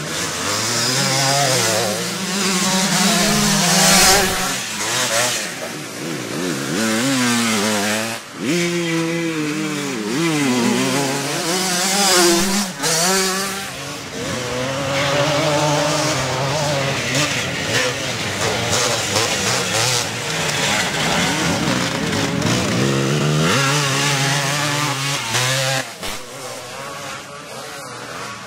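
Several vintage twinshock motocross bikes racing through a corner, their engines revving hard, with the pitch rising and falling as the riders shut off and accelerate. The engine noise eases off near the end as the bikes move away.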